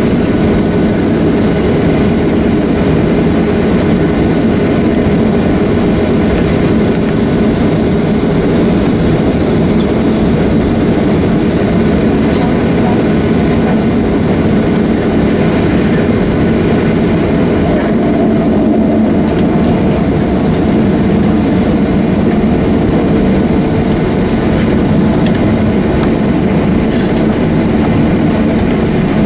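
Steady cabin noise inside a Boeing 737-800: its CFM56-7B jet engines running with a constant low rumble and a few faint steady tones over it.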